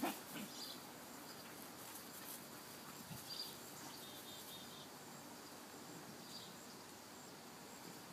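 Faint outdoor ambience with small birds chirping now and then, including a quick run of four short notes about four seconds in. A soft knock comes at the very start and another about three seconds in.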